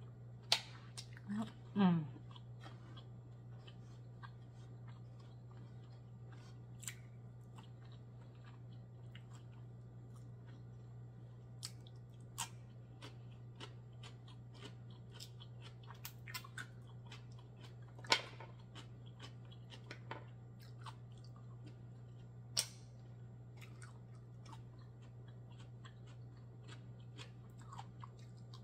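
Close-up eating of steamed black mussels: a wet slurp as a mussel is sucked from its shell about two seconds in, then quiet chewing with scattered sharp clicks of the shells over a steady low hum.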